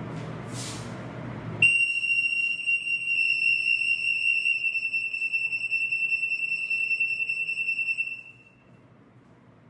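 Anti-theft EAS gate buzzer sounding a steady, high-pitched alarm tone for about six seconds: the RF antenna has detected an RF soft label. The tone cuts in about two seconds in and stops abruptly near the end.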